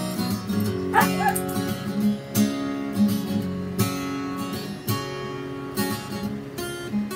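Acoustic guitar strummed in a steady rhythm. About a second in, a dog gives a brief high, wavering whine over the strumming.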